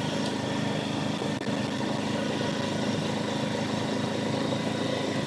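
ATV engine running at a steady pace as the machine drives along a dirt trail; an even, unchanging hum.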